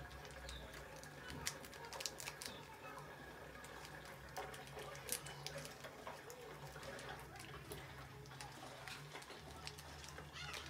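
Faint crinkling and small ticks of a plastic ramen seasoning sachet being handled and torn open, over a low steady hum.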